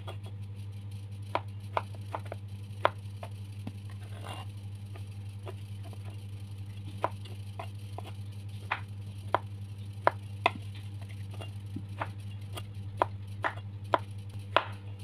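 Kitchen knife dicing tempeh, the blade knocking on a wooden cutting board in irregular sharp taps, over a steady low hum.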